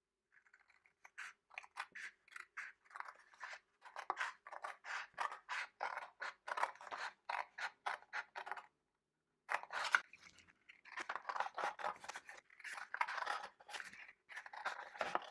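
Scissors cutting through a sheet of cardstock along a diagonal line: a run of short snips, about three a second, with a brief pause partway through.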